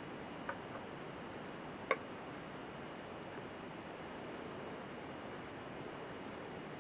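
A few light clicks over a steady faint hiss: one about half a second in, a weaker one just after, and a sharper one about two seconds in.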